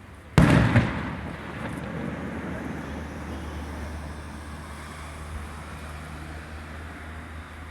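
A fireworks shell bursts with a sharp boom about half a second in, then a slowly fading rumble and crackle. A steady low hum sets in near the middle.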